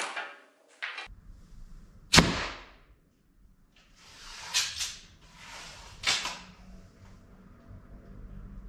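Mark 3 slingshot rifle fired three times into a ballistic gel block: three sharp cracks about two, four and a half and six seconds in, the first the loudest.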